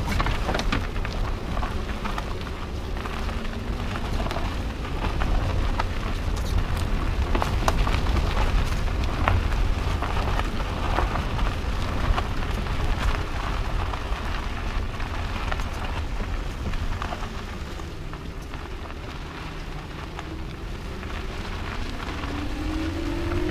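Tyres of a 2009 Nissan Altima Hybrid rolling over a leaf-strewn dirt and gravel track: a steady crunching hiss with scattered sharp ticks of small stones, and a heavy low rumble. A rising hum comes in near the end.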